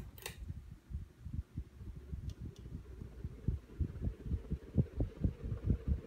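Hunter Quiet Breeze ceiling fan being switched back to high: a click of the control near the start, then the fan's air stream buffeting the microphone in uneven low thumps that grow stronger as the fan speeds up.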